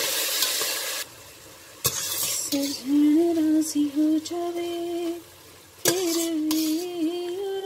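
Chicken pieces frying in hot oil in a stainless steel pot, stirred with a spatula: sizzling, with sharp clicks of the spatula against the pot. From about two and a half seconds in, a steady low tone that shifts up and down in small steps runs over the frying.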